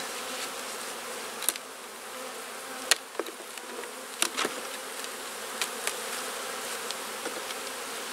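A mass of honeybees buzzing steadily around an opened hive box. Several sharp clicks and knocks come through it as wooden frames are pried loose with a hive tool and lifted out.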